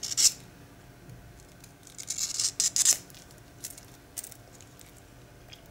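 A small, thin leatherworker's knife slicing through a leather strap held in the air. There are several short, crisp cutting strokes, the busiest run of them a couple of seconds in.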